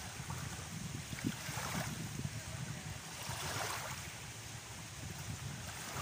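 Small waves lapping and washing over a shallow shoreline, with swells of splashing hiss about two seconds and three and a half seconds in, over a low rumble of wind on the microphone.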